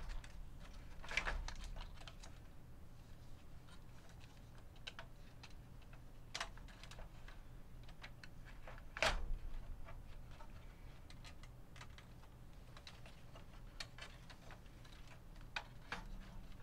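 Scattered clicks and small knocks of hands handling a Sony EV-S9000E video recorder's tape deck and working its cable connectors while refitting the deck. The two loudest knocks come about a second in and about nine seconds in.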